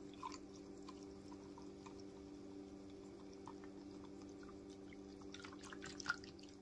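Silicone whisk stirring milk and yeast in a glass measuring jug: soft liquid swishing with light, scattered taps of the whisk against the glass, and a sharper tap about six seconds in.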